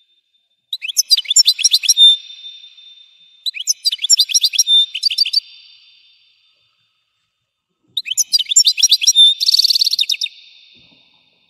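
European goldfinch singing: three bursts of rapid, high twittering notes, the last ending in a buzzy trill.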